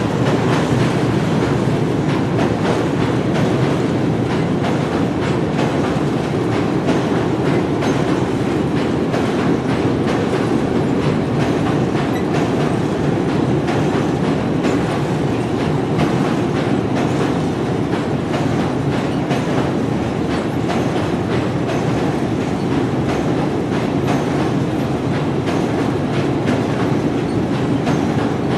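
A train running steadily along the track: a continuous rumble from the wheels and carriages, with a running patter of faint clicks from the wheels over the rails.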